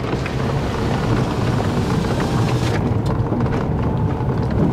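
Ford Fiesta's engine pulling steadily up a gravel hill, with the tyres rumbling over the loose stones, heard from inside the car.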